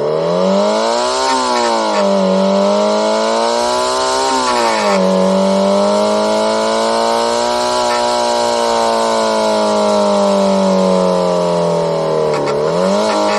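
Synthesized engine sound from a homemade optical, non-contact engine-sound generator imitating a Subaru EJ20 flat-four with equal-length exhaust, accelerating at high revs. Its pitch climbs and drops back twice in the first five seconds, then holds high and slowly sags before a quick dip and rise near the end.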